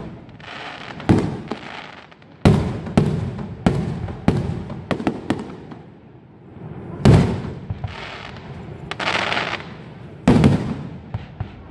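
Aerial firework shells bursting: a string of sharp booms, loudest about two and a half, seven and ten seconds in, with stretches of hissing crackle from the burst stars between them.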